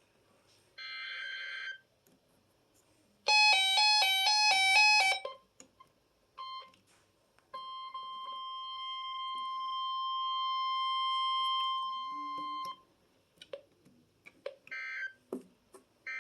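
An Emergency Alert System (SAME) message: a short digital header burst, a loud alternating two-pitch alert beep for about two seconds, then a brief blip and the steady 1050 Hz weather-radio warning tone held for about five seconds. Short end-of-message data bursts follow near the end.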